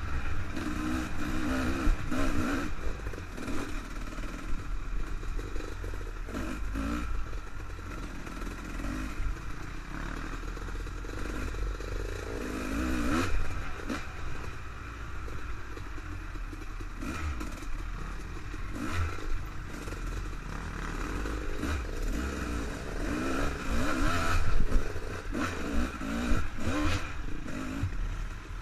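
Dirt bike engine running on a rough trail, its pitch rising and falling with the throttle, over a constant low rumble. Scattered rattles and knocks come from the bike jolting over the ground.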